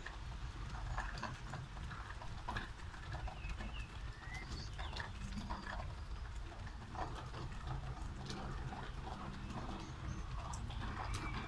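Rain falling in a city street: scattered drops tapping and dripping on hard surfaces over a steady low rumble.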